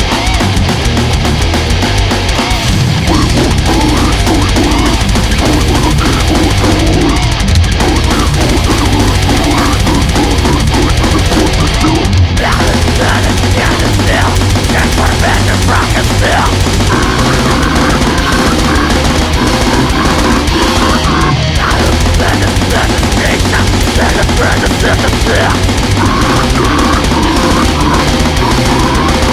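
Loud, dense extreme heavy metal recording: distorted guitars over fast, relentless drumming.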